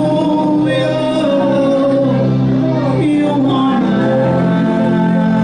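Gospel worship music: voices singing long, gliding notes over a steady sustained instrumental backing.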